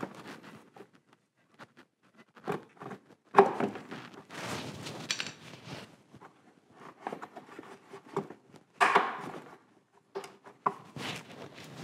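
Hard plastic brake-cooling air scoop being worked loose and pulled out from under a car's front end: scattered clicks, knocks and scraping of plastic against the bodywork, with a few louder bursts of handling.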